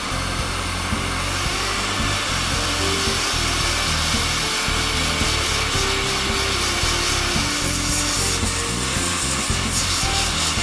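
Hot air rework station blowing a steady hiss of hot air at 45% airflow onto a phone's soldered SIM card reader to melt its solder. Background music with a low beat plays over it.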